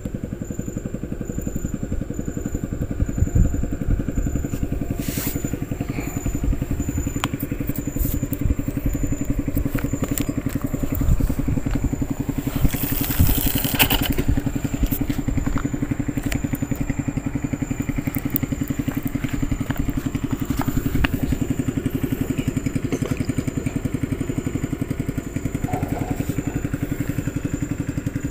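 A small engine running steadily at an even, fast idle, with scattered light clicks and a brief hiss about halfway through.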